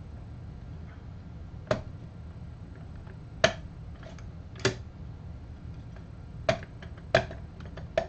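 Five sharp clicks, a second or two apart and unevenly spaced, from the Obel Junior coffee grinder's doser housing as it is gripped and turned by hand, over a low steady hum.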